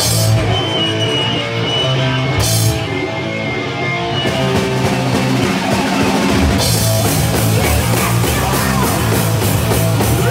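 Punk band playing live, loud: distorted electric guitar, bass and drum kit come in together at once at the start of a song. The cymbals crash in harder about four seconds in and again about six and a half seconds in.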